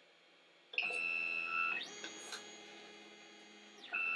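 Creality Ender 5 3D printer's stepper motors whining as the printhead travels to the next bed-leveling corner. The whine starts about a second in, shifts to a different tone nearly two seconds in, and goes back to the first tone near the end.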